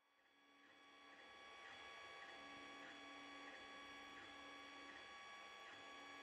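Desktop 3D printer running, faint: its stepper motors give a steady whine with a lower tone that starts and stops every second or so as the print head moves, and light regular clicks. It fades in over the first couple of seconds.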